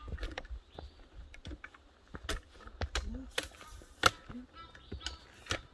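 Footsteps on a forest path, with dry leaves and twigs crunching and snapping underfoot in an irregular run of sharp clicks; the loudest snap comes about four seconds in.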